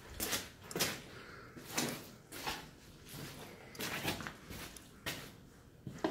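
Footsteps on a wet, muddy cave floor strewn with loose stones: about ten short steps at an uneven walking pace.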